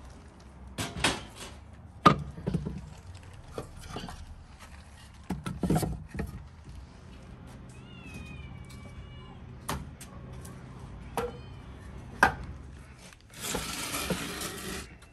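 Split firewood logs being set and stacked on the stone floor of a brick wood-fired oven: a series of wooden knocks and clunks. A brief high gliding call comes about eight seconds in, and a short rushing hiss near the end.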